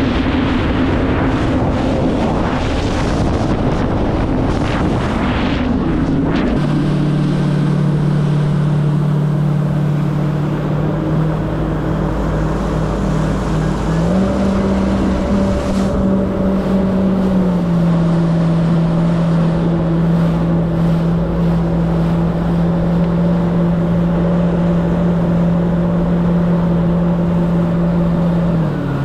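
Yamaha WaveRunner jet ski engine running at speed, with wind and water spray hissing over it. The engine settles into a steady drone a few seconds in, steps up in pitch about halfway through, eases back slightly a few seconds later, and drops right at the end.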